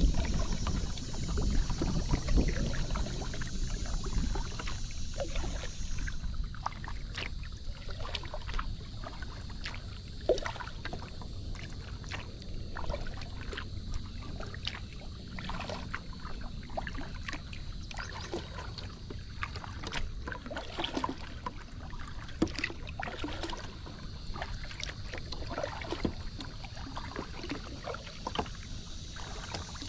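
Paddling a Moken 12.5 kayak: the paddle dipping and water splashing and dripping in short, irregular bursts. A low rumble is louder for the first five seconds or so.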